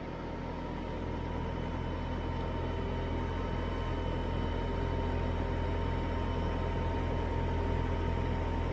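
An engine running steadily: a low hum with a faint, steady high whine over it. It grows a little louder over the first couple of seconds, then holds even.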